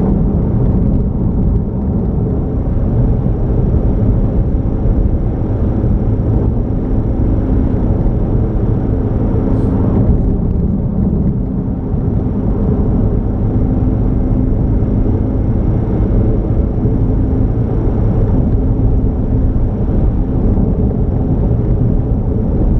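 Vehicle driving at a steady speed: continuous low engine and road rumble.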